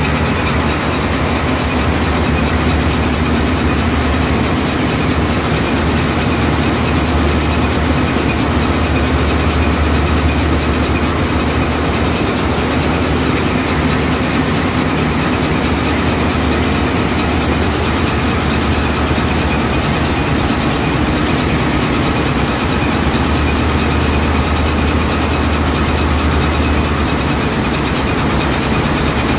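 Ship's inline marine diesel engine running steadily in the engine room: a loud, unchanging deep drone with a constant machinery hiss over it.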